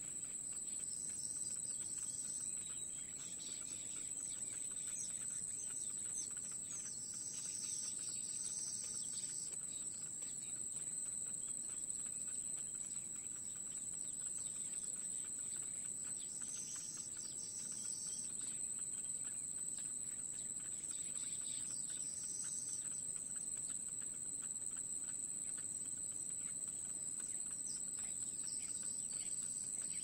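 Steady high-pitched insect drone, as from crickets, running throughout. Five short bursts of high chirping come in every several seconds over it.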